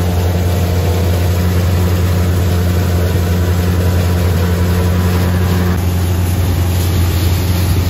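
Tractor engine and PTO-driven silo-filling machinery running steadily, with a constant low hum, while a forage wagon unloads chopped corn silage into the blower's hopper and auger.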